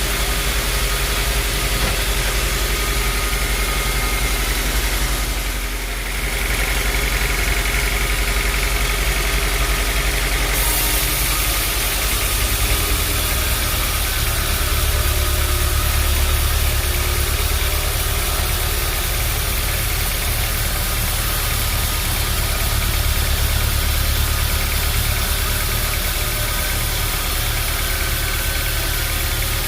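Sawmill machinery running steadily with a continuous motor hum. There is a brief dip about six seconds in, and the low hum grows stronger about twelve seconds in.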